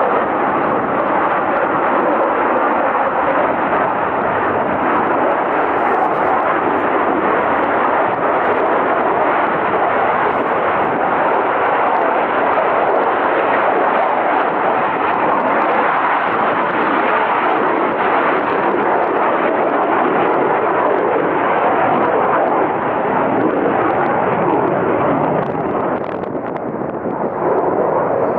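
Jet noise from a Lockheed F-35A Lightning II's single afterburning turbofan, a loud steady roar that eases briefly near the end.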